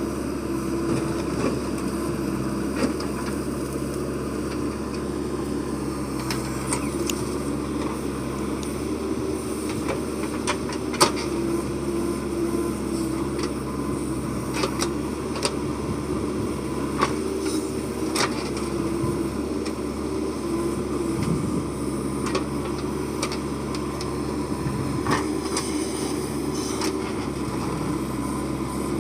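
Heavy diesel engine running steadily, with scattered sharp clanks, the loudest about 11 seconds in.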